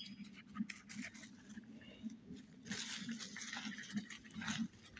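Footsteps crunching and rustling through dry leaf litter on a forest floor. The crunching is irregular, growing denser and louder from about three seconds in.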